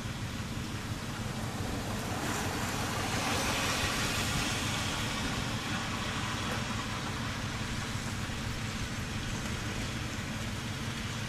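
Steady rush of road traffic outside, swelling as a vehicle passes about three to five seconds in, over a low steady hum.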